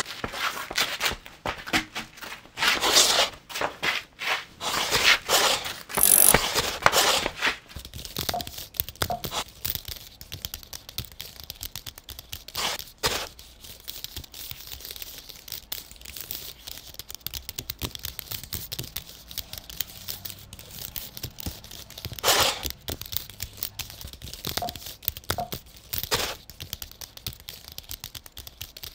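Close-up handling noises of clay sculpting: modelling clay being torn, pressed and worked by hand, with scattered small clicks and taps. A run of louder scrapes and knocks comes in the first several seconds, and a few more near the end.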